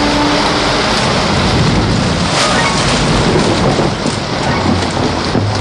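Heavy rainstorm: a steady, loud downpour with a low rumble of thunder underneath.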